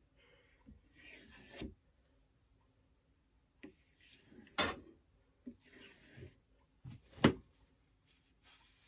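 Paper-cutter blade drawn across a strop in a few soft, brushing strokes, honing the freshly sharpened edge. Two sharp knocks come about four and a half and seven seconds in, the second the loudest.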